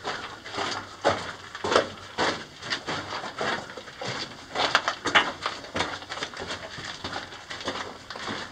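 Footsteps on loose rock and gravel along old mine rail tracks, about one to two uneven steps a second, inside a narrow rock tunnel.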